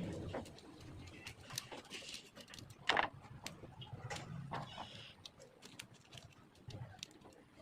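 Scattered light clicks and taps of handling noise, with one sharper knock about three seconds in.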